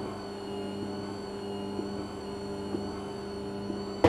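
ARD-NM4 electric noodle maker's mixer motor running with a steady hum, turning to knead flour, egg and vegetable juice into noodle dough during its mixing stage.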